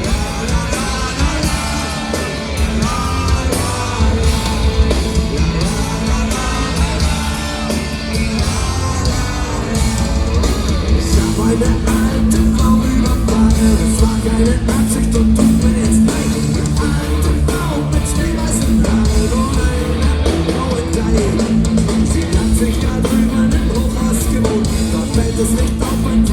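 Punk rock band playing live: guitars and drums, with a voice singing over them at times.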